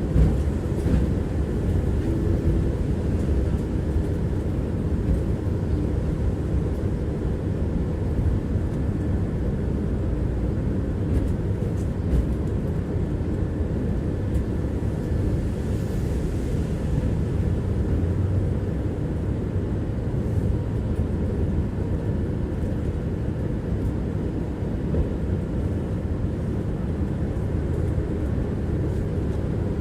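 Tram running along the track, heard from inside the passenger car: a steady low rumble of wheels on rails and running gear, with a few faint clicks.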